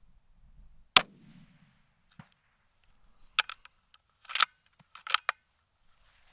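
A single shot from a Browning A-Bolt bolt-action rifle about a second in, sharp and by far the loudest sound, trailed by a short low rumble. Two to four seconds later comes a quick run of metallic clicks and clacks as the bolt is cycled.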